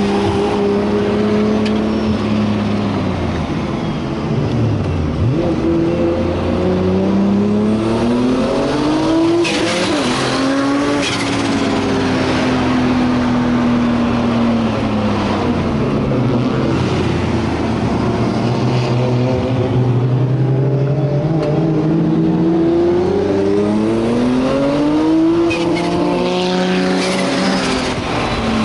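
Nissan Skyline R34 GT-R's turbocharged 3.2-litre RB straight-six heard from inside the cabin, pulling hard with revs climbing twice, once about a third of the way in and again near the end, and easing off in between.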